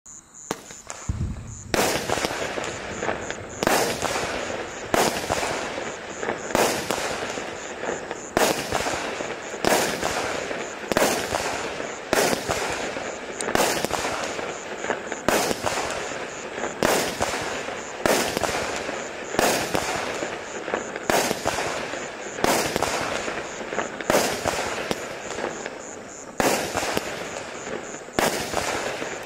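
Black Cat Space Race single-ignition firework cake firing shot after shot. After a soft thump about a second in, sharp bangs follow roughly every one and a half seconds, with continuous noise from the bursting effects between them.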